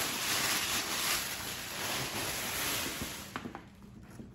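Tissue paper rustling and crinkling as it is pulled off a leather handbag; the rustle dies away a little over three seconds in, leaving a couple of faint taps.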